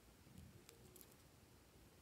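Near silence, with faint handling noise: a soft low thump about half a second in and a few light clicks as a plastic piping bag and scissors are handled.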